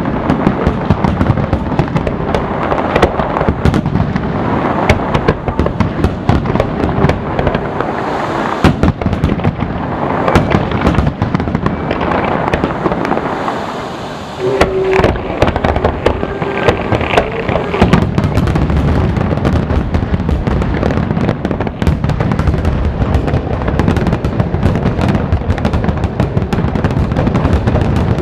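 Fireworks display: dense, continuous bangs and crackling of bursting aerial shells, easing briefly about halfway before building again.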